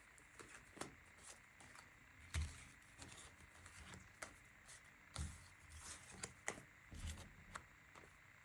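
A deck of tarot cards being gathered and shuffled by hand: faint quick card swishes and flicks, with a few soft knocks on the wooden table, the loudest about two and a half seconds in.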